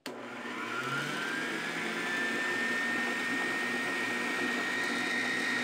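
Electric stand mixer running with its wire whisk beating egg yolks and sugar. The motor whine rises in pitch over the first two seconds as it comes up to speed, then holds steady.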